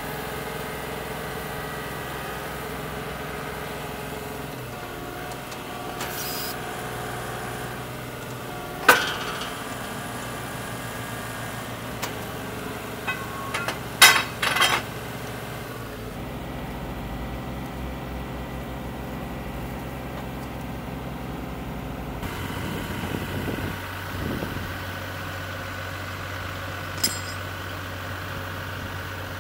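Grundodrill 5X horizontal directional drill running steadily under power during pullback, its engine and hydraulics droning with a tone that shifts a couple of times. Sharp metallic clanks of drill rods being handled: one loud clank about a third of the way in, a cluster around the middle and one more near the end.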